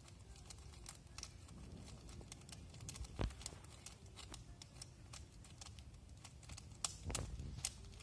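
Footsteps on a dry forest trail: scattered light crackles and clicks, with two heavier knocks about three seconds in and about seven seconds in.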